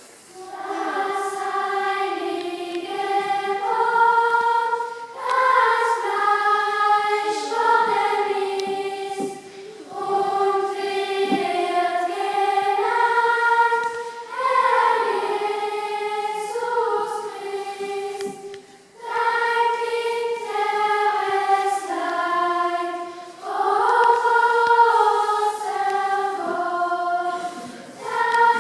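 Choir of adults and children singing together in a church, in sung phrases of about four to five seconds with brief breaks between them.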